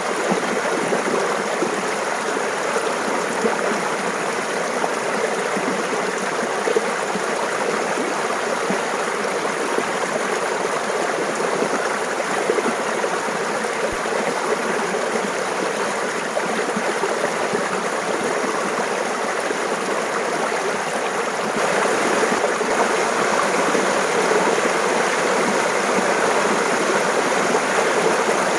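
Mountain stream babbling steadily, growing a little louder about three-quarters of the way through.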